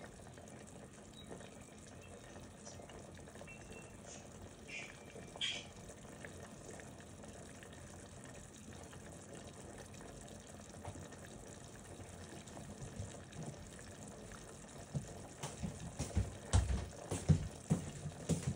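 Carrots boiling in a covered aluminium pot on a gas stove: a steady faint bubbling hiss. In the last few seconds a run of knocks and clinks sounds against the pot.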